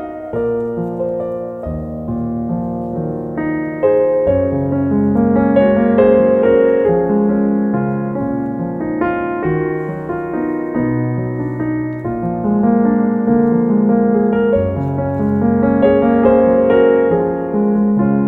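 Background piano music: a slow melody of held notes over low bass notes.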